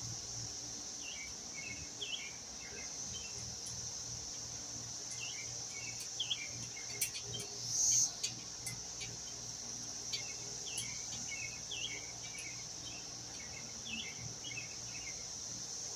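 Steady high-pitched chorus of crickets, with scattered short chirps and a few light clicks, and one brief louder burst about halfway through.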